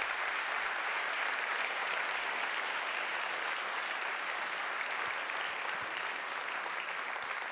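Large seated audience applauding, a steady even clapping.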